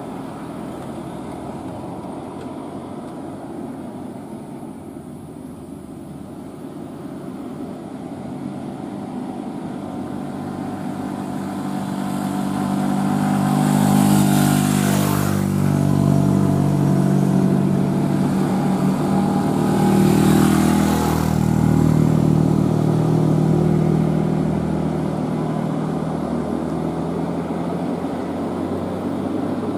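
Heavy Scania truck's diesel engine labouring on a steep climb, its steady drone growing louder through the middle and easing off near the end. Two short bursts of hiss cut in, about halfway and about two-thirds of the way through.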